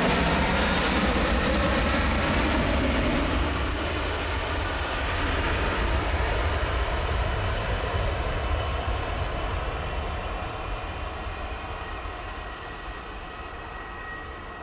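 Boeing 737-700 BBJ's two CFM56-7B turbofan engines at takeoff power during the takeoff roll. The noise is loudest as the jet passes and fades steadily from about eight seconds in, as it rolls away toward liftoff.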